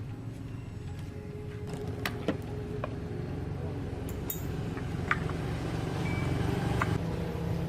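A machine running steadily with a low, fast-pulsing rumble, with scattered light metallic clicks and clinks over it.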